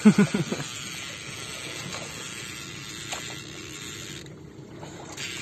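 Sea water sloshing and lapping against the hull of a small outrigger boat, a steady noisy wash. A brief, loud vocal sound at the very start.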